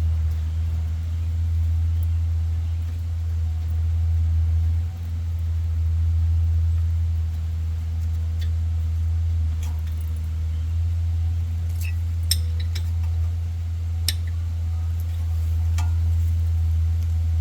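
Scattered sharp metallic clinks of tools and the 13 mm caliper bolts against the rear brake caliper as the bolts are worked in, about ten in the second half. A steady low rumble runs underneath.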